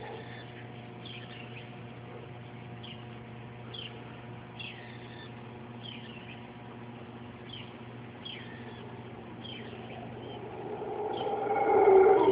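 A bird repeating a short, downward-sliding call about once a second over a steady background hum. In the last two seconds the deep roar of mantled howler monkeys swells up and becomes the loudest sound.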